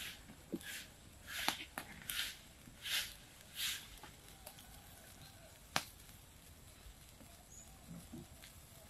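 Short rustling scrapes, about five in the first few seconds, and a few sharp knocks as bamboo tubes of sticky rice are handled and stood against a wood fire.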